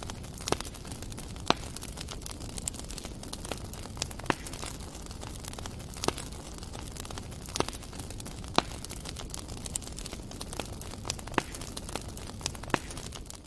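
Small wood fire crackling under a clay pot, with eggplants roasting in its flames: a steady hiss broken by sharp, irregular pops, roughly one every second or so.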